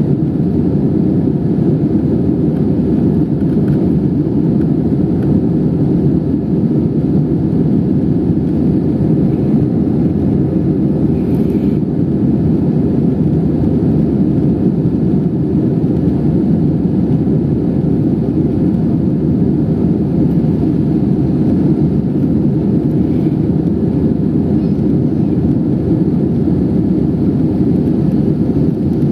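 Steady, loud rumble of an Airbus A320-214 airliner heard inside the cabin: its two CFM56-5B engines and the airflow around the fuselage.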